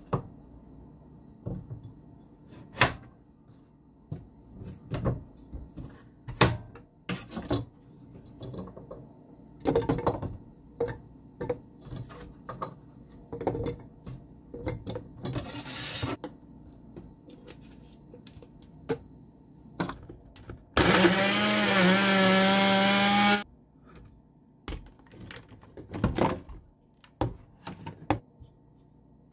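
Kitchen knife chopping carrot on a cutting board and carrot chunks knocking into a blender jar, as carrot juice is prepared. Near the end an electric blender runs in one short burst of about two and a half seconds, the loudest sound, with its motor pitch wavering as it works through the carrot. A knife then cuts into a lemon on the board.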